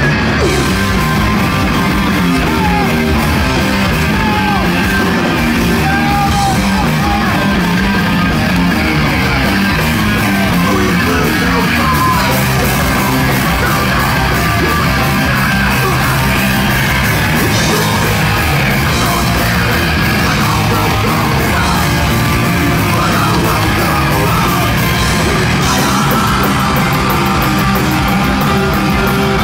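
A live punk band playing loud and without a break: distorted electric guitars, bass and drums, with a singer shouting into the microphone.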